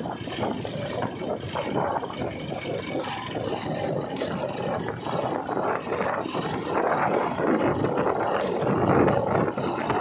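Motorcycle riding along a road: a rushing, uneven mix of engine and wind noise, a little louder near the end.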